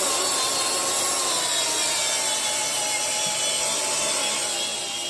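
A handheld power tool scrubbing the metal of a small-block Chevy 350 engine clean: a steady rasping with a motor whine whose pitch sags slowly under load.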